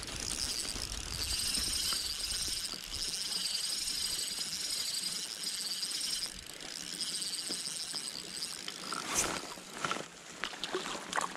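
Shimano Vanquish spinning reel being cranked, giving a high whir that wavers evenly up and down. Near the end come several short splashes as the hooked trout thrashes at the surface.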